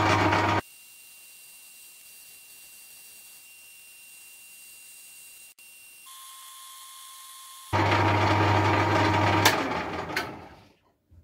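Small metal-turning lathe running, its motor giving a steady low hum. It cuts off abruptly after half a second, leaving a faint hiss with a thin high tone, then starts again at about 8 s and winds down to a stop around 10 s, with a couple of clicks as it slows.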